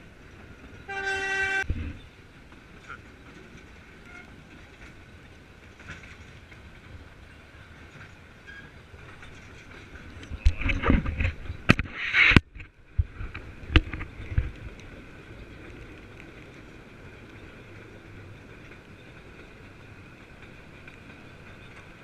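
Steam locomotive whistle giving one short blast about a second in, over the steady running noise of the train. Around the middle comes a cluster of loud knocks and thumps.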